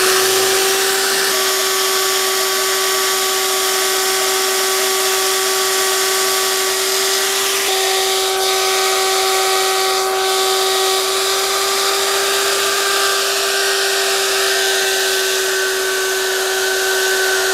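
An electric power tool's motor running steadily with a constant high-pitched whine.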